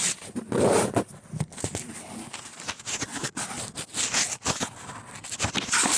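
Handling noise close to the microphone: irregular knocks, scrapes and rustles as the camera is being moved and set up higher, with a louder rub about half a second in.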